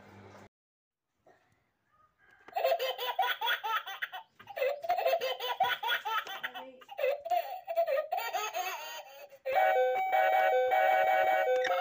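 High-pitched, choppy laughter that wavers up and down, after a brief silent gap. About two-thirds of the way in, a music track of steady chiming melody notes takes over.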